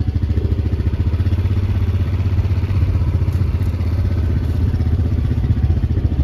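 Small engine of a slowly moving vehicle running at low speed, a steady, fast putter with some rattle.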